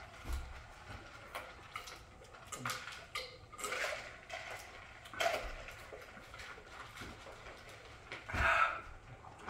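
Scattered short noises of people eating and drinking fast: mouth, gulping and cup-handling sounds at irregular intervals, the loudest a brief burst near the end.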